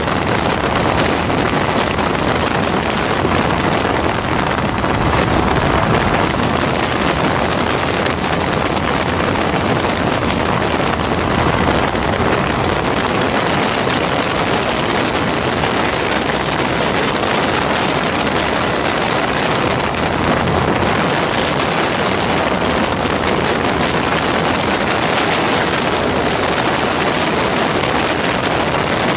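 Hirth F33 single-cylinder two-stroke engine and propeller of a MiniMax ultralight running steadily in level flight, heard through loud, steady wind noise on the microphone in the open cockpit.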